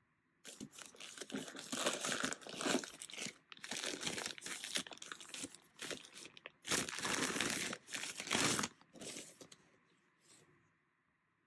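Thin plastic wrapping crinkling and rustling as it is pulled off a camera by hand. It comes in a run of bursts lasting about nine seconds, loudest a little past the middle.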